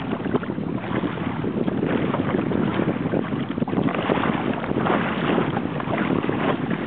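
Wind rushing over the microphone, with lake water washing and splashing against the hull of a small sailing kayak under way. A steady rush, full of small crackles.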